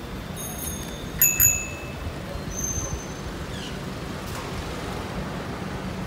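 Busy city street ambience: a steady hum of traffic and idling engines. About a second in there is a quick run of short, bright metallic pings, the loudest a sharp pair, with one fainter ping soon after.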